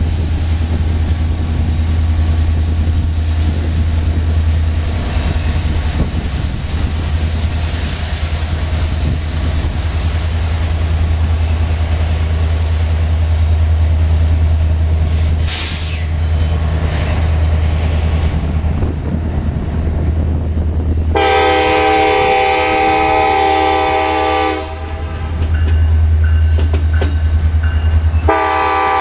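Union Pacific diesel locomotives hauling an auto rack train rumble past at close range, engines running steadily. About three-quarters of the way through, a multi-tone locomotive air horn sounds one long blast of about three and a half seconds, and another blast begins just before the end.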